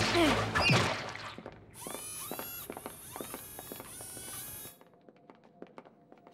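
Cartoon spy-gadget sound effects as a mascara gadget is fired: first a zap with quick falling pitch sweeps, then about three seconds of bright fizzing with many arcing sweeps that stops suddenly, leaving only faint clicks.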